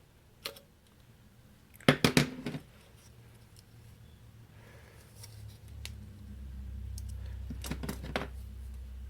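A few sharp clicks and a short clatter of small hard objects being handled, then a low steady hum builds up about six seconds in and keeps going.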